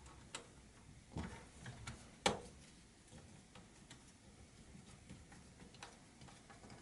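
Small screwdriver driving a screw into a laptop's plastic base: faint, irregular clicks and ticks of the tip and screw, with one sharper click a little over two seconds in.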